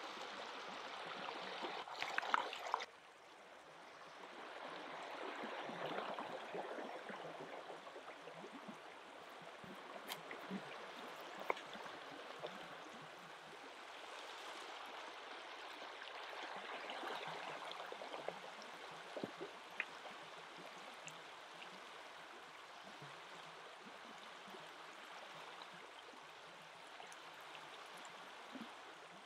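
A river flowing steadily. For the first three seconds or so a wooden pestle grinds and knocks in a wooden mortar, then stops suddenly; a few faint clicks and taps follow later.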